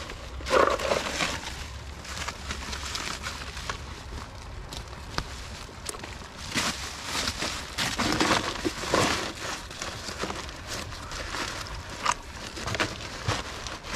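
Woven plastic sack rustling and crinkling as it is handled and stuffed around a battery, in irregular bursts.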